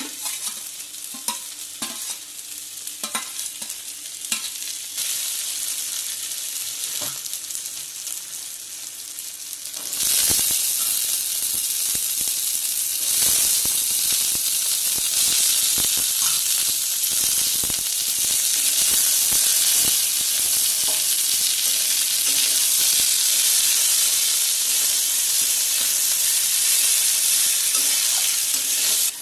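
Food frying in mustard oil in a pan, stirred with a spatula that scrapes and clicks against the pan. About ten seconds in, the sizzle suddenly grows much louder and stays loud and steady.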